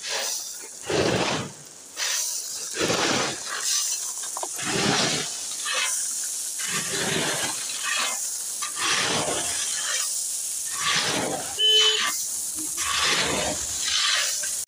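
Gravel being shovelled off a truck by hand: repeated gritty scrapes and rushes of stones, about one a second.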